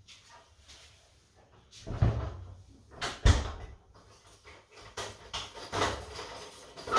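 Apartment front door being shut and secured: a heavy knock about two seconds in, a louder one just after three seconds, then a run of smaller clicks and knocks from the handle and lock near the end.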